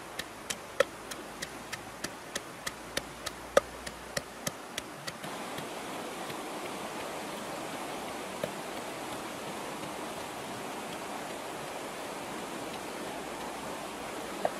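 Pestle pounding red chilies and garlic in a mortar, about three strikes a second, stopping about five seconds in. Under it and after it runs the steady rush of a fast river.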